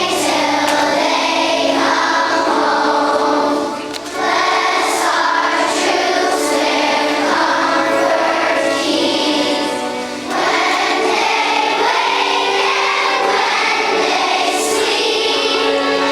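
A children's choir singing a song, in sustained phrases with short breaks about four and ten seconds in.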